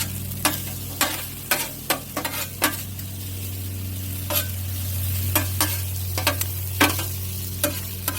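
Food frying on a propane Blackstone flat-top griddle, sizzling steadily, while metal spatulas scrape and clack against the steel cooking surface in sharp, irregular clicks a few times a second.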